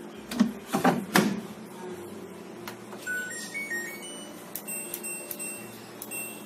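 A few knocks in the first second, then a front-loading washing machine's control panel plays a short stepped run of beeps as it switches on. Its program dial is turned after that, with short clicks and beeps at each step.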